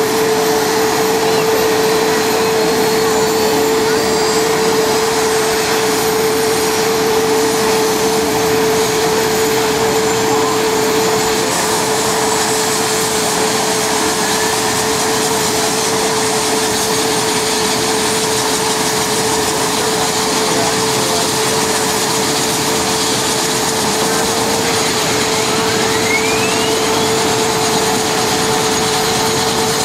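Mil Mi-24P helicopter's twin turboshaft engines running on the ground as the main rotor spins up: a steady, loud turbine whine with one constant tone over a wide rushing noise.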